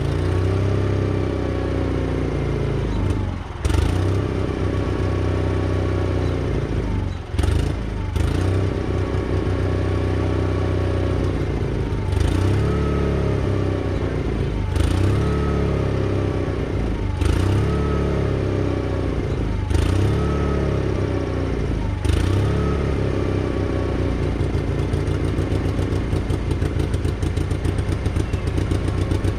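Case 1816C skid steer's gas engine running, its speed dropping sharply and picking back up again and again, with a clunk at each drop, about every two and a half seconds through the middle. Near the end it settles to a steady run.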